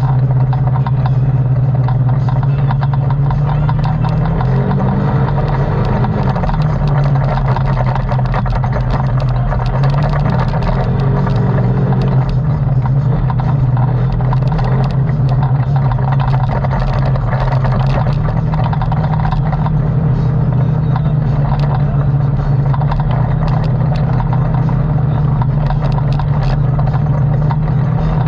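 ATV engine running steadily under way, its pitch rising and falling twice with the throttle, about 4 to 7 seconds in and again around 10 to 13 seconds in.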